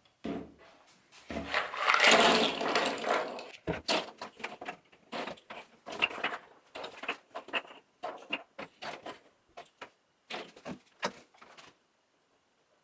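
Dry walnut shell halves clicking and clattering on a wooden tabletop as they are handled and set down. A dense stretch of rattling runs from about one and a half to three and a half seconds in, then single light clicks and small rattles follow.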